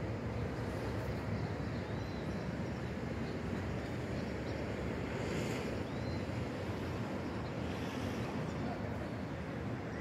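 Steady, even hum of distant city traffic heard from high above the streets.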